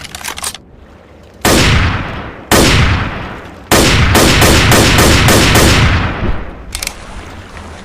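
Ruger Mini-14 semi-automatic rifle firing: two single shots about a second apart, then a quick string of about seven shots at roughly three a second, each shot trailing off in a long echo. Short clicks come just before the first shot and again near the end.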